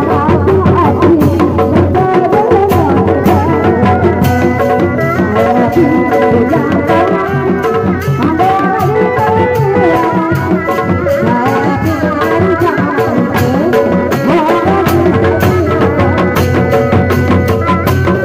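Sundanese street-procession music: large drums slung from bamboo poles and struck with padded mallets keep a steady, dense beat under a wavering folk melody line.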